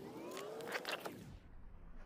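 Electric whine of an RC rock crawler's motor and gears, rising in pitch as the truck pulls away, with a burst of scraping and clicking from its tyres and chassis on the rock; it drops off about one and a half seconds in.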